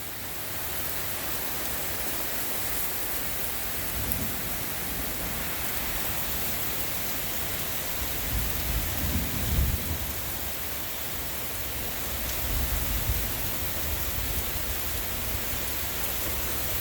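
Heavy rain pouring steadily in a thunderstorm, with low rolls of thunder rumbling about eight seconds in and again near thirteen seconds.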